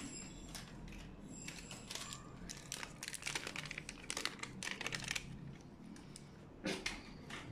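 Plastic packet crinkling in the hand as powdered milk is shaken out of it into a pot: a run of faint, irregular crackles, with one more near the end.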